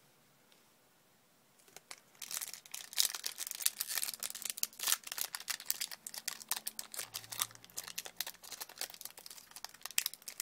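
Foil Yu-Gi-Oh booster pack wrapper being torn open and crinkled in the hands: a dense run of crackling that starts about two seconds in.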